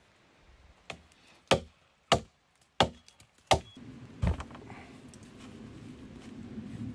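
Chopping into a wooden log to cut notches for a beam joint: about six sharp strikes, roughly one every two-thirds of a second, followed by a steadier rough working sound on the wood for the last few seconds.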